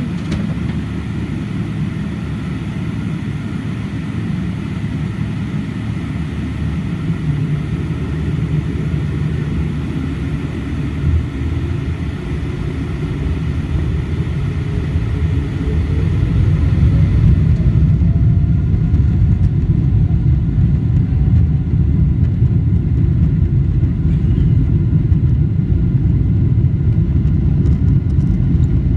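Boeing 777-300ER's GE90 jet engines heard inside the cabin: a steady low rumble, then about halfway a rising whine as the engines spool up to takeoff thrust and the sound grows louder as the takeoff roll begins.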